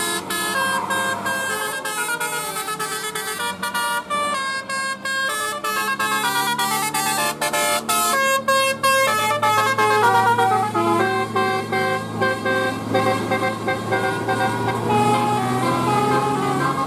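Bus 'telolet' horn of the Basuri type, its set of electrically switched air horns playing a quick melody of short stepping notes, several sounding together, over a low steady drone.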